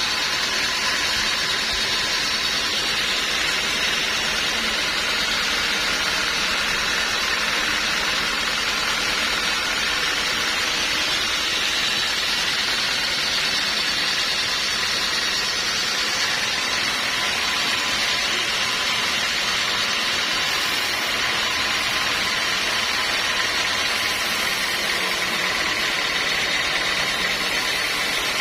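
Sawmill machinery running steadily without a break, a constant noise with no distinct strokes or pauses.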